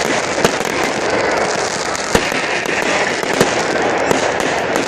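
Fireworks going off: dense, continuous crackling with sharp bangs about half a second, two seconds and three and a half seconds in.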